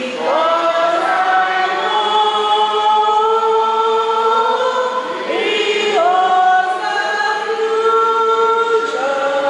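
Choir singing slowly in long held notes, several voices together, the pitch shifting every few seconds.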